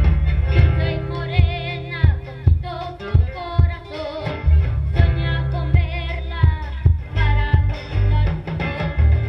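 A young boy singing a melody with a wavering pitch over a live band of guitars, bandoneon, drum kit and hand percussion, amplified through a PA with a heavy, booming low end.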